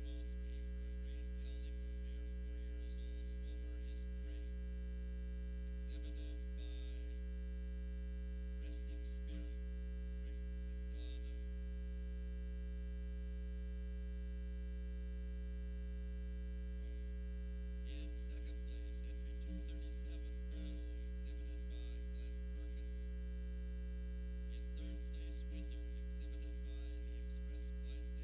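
Steady low electrical mains hum with a stack of higher overtones.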